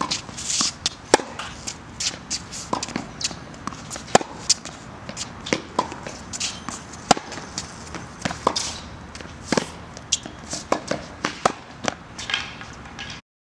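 Tennis rally on a hard court: sharp pops of racket strings hitting the ball every few seconds, with ball bounces and the scuff of shoes on the court between them. The sound cuts off just before the end.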